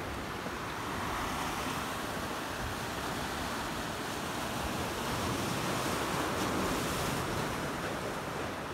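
Small sea waves washing against shoreline boulders, a steady hiss that swells a little twice, with wind rumbling on the microphone.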